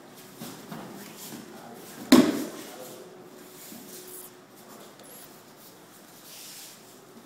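One loud thump, about two seconds in, of a body landing in a breakfall on a padded training mat during an aikido throw, with softer scuffs of feet on the mat before and after.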